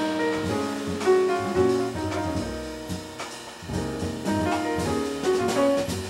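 Jazz piano trio playing live: grand piano lines over walking upright double bass, with a Gretsch drum kit's cymbals and drums keeping time.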